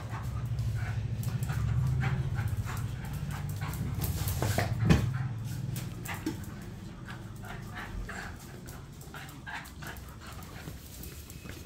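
Beagle puppy panting and whimpering as it plays with a rope toy, with a low rumble through the first half and a sharp knock about five seconds in.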